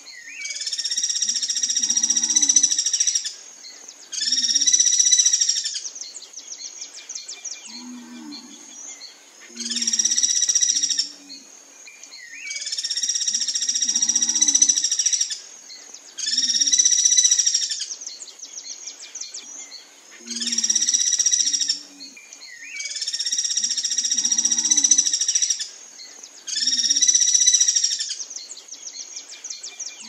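Guira cuckoo calling loudly over and over, about eight harsh, buzzy calls of one to three seconds each with short pauses between them. A steady high-pitched whine runs in the background.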